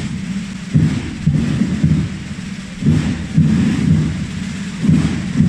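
Procession drums played together in loud, booming rolls, in repeated phrases that each start with a hard accented stroke.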